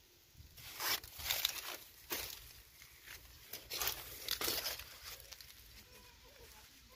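Footsteps crunching on dry grass and leaves, a handful of irregular steps that fade in the last couple of seconds.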